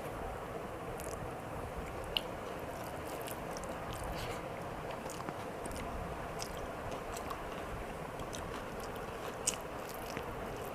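Close-up eating sounds: chewing and small wet mouth clicks, a couple of them a little louder, over the steady whir of an electric fan.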